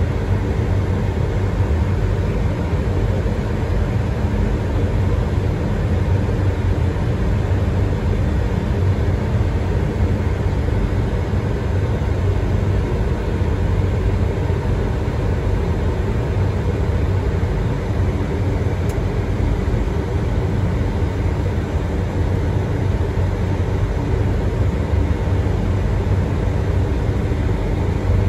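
Steady flight-deck noise inside a Boeing 737-800 on final approach: an even rushing noise over a low hum, holding the same level throughout.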